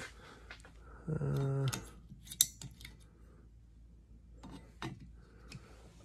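Plastic clicks and rattles of a new wiper blade being handled and fitted onto a car's wiper arm, with one sharp click about two and a half seconds in. A short low hum from a man's voice just after the first second.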